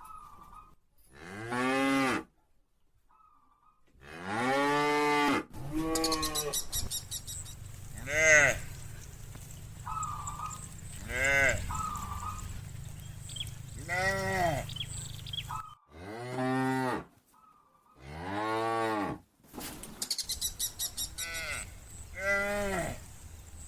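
A herd of cattle mooing: about ten separate long moos from different cows, one after another, some louder and some farther off.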